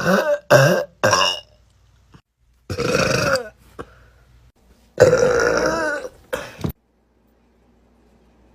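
A young woman burping loudly several times: three short belches in quick succession, another about three seconds in, then a long drawn-out belch about five seconds in that ends with a short final one.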